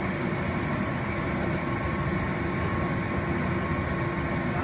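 Workshop machinery running steadily: an even mechanical hum with a few constant tones over it.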